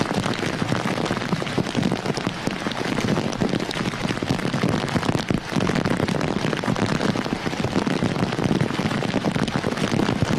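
Heavy typhoon rain pelting down, a dense, steady crackling patter.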